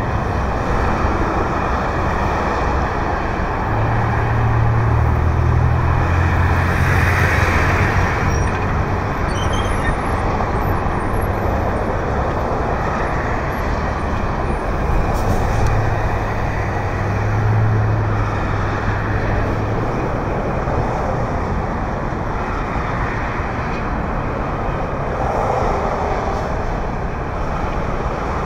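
Steady road traffic noise, with a low engine drone swelling twice.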